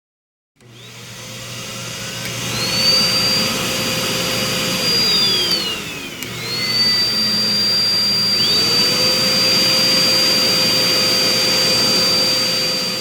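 Pet grooming blower (dryer) motor switched on and whining up to speed like a vacuum cleaner. Its pitch sags and climbs back about five to six seconds in, then it runs steadily with a high whine.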